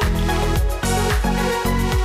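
Background electronic music with a steady beat and deep bass.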